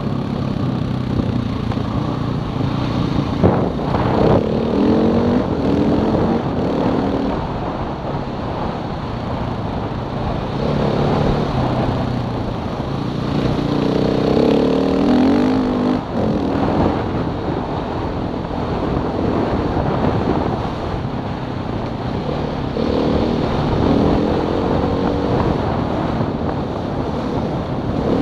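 Onboard sound of a vehicle engine running as it drives a gravel track, its revs rising and falling several times, over a steady rumble of tyres on loose gravel.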